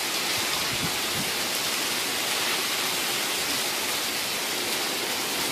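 Heavy rain pouring down in a thunderstorm, a steady, even hiss.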